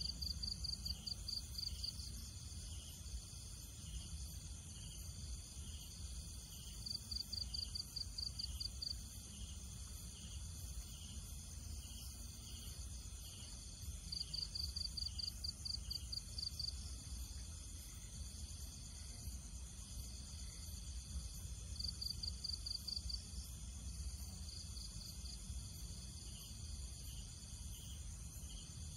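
Insects chirping outdoors: a steady high buzz with a bright pulsed trill of about five chirps a second that comes back every several seconds, over a low rumble.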